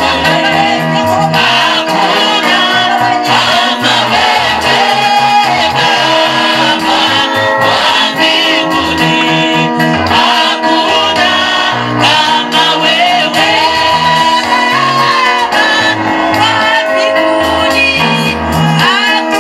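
Gospel praise and worship music: voices singing over instrumental backing with a steady, pulsing bass line.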